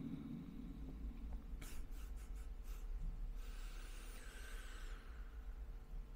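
A pause in a Quran recitation: quiet room tone with a faint steady hum, and a few soft rustles about two seconds in followed by a brief soft hiss.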